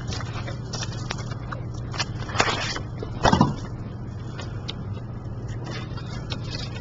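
Light knocks and scrapes of plastic syringes and IV tubing being handled on a tabletop, a few of them around the middle, over a steady low hum.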